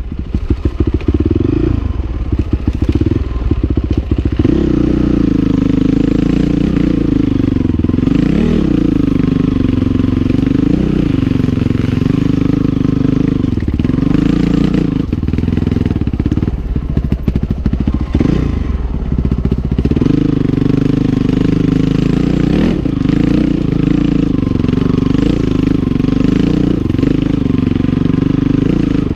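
Honda CRF450R dirt bike's single-cylinder four-stroke engine revving up and down in short throttle blips at low trail speed. The bike clatters over rocks in the first few seconds and again about seventeen seconds in.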